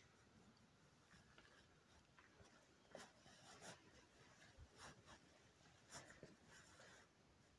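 Near silence with faint, short scratching and rustling strokes, a handful of them in the middle of the stretch.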